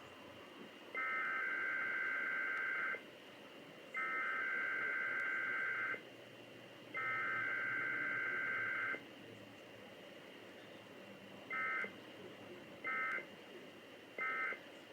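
Emergency Alert System weekly test: three bursts of SAME digital header data, about two seconds each and a second apart, heard as a buzzy two-tone warble. After a pause come three short end-of-message bursts. There is no attention tone or voice message, the usual form of a Required Weekly Test.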